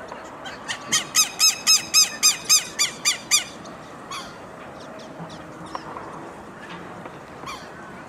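Southern lapwing calling: a rapid run of about eleven loud, ringing notes, about four a second, lasting close to three seconds, then a few fainter, scattered bird calls.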